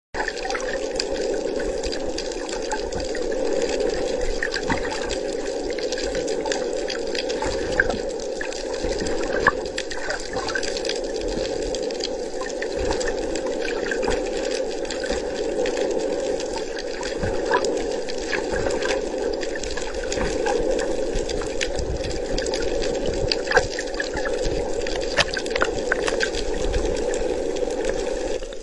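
Steady rush of water heard through an underwater camera, with scattered small clicks and ticks throughout.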